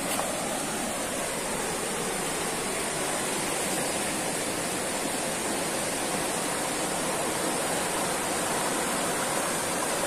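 River water rushing over rocky rapids just above a waterfall: a steady, even rush with no break or change.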